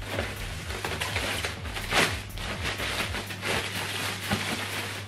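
Plastic packaging bag rustling and crinkling as it is lifted and handled, with a louder crinkle about two seconds in.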